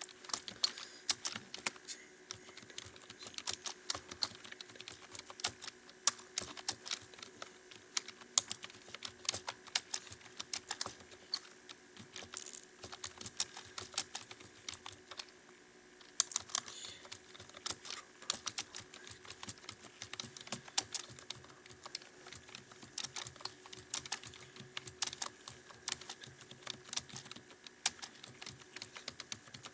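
Computer keyboard being typed on at a steady, fast pace: a continuous run of irregular key clicks, with a brief pause about halfway through, over a faint steady hum.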